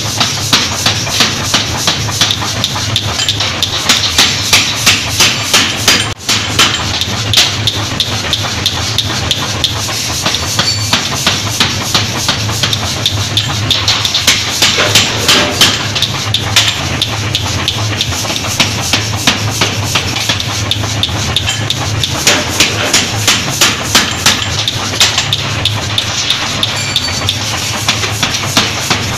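Power hammer forging a red-hot steel bar, striking in rapid repeated blows over the steady low hum of the machine, with a brief break about six seconds in.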